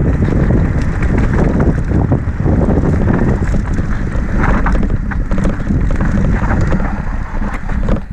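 Wind blasting across the microphone as a mountain bike rides down a dry, rough dirt singletrack, with a steady rumble and scattered rattles and clicks from the tyres and bike over the trail.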